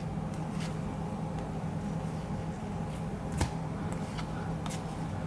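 Cardboard trading cards handled and slid through by hand, giving a few light clicks as the card edges are moved, over a steady low hum.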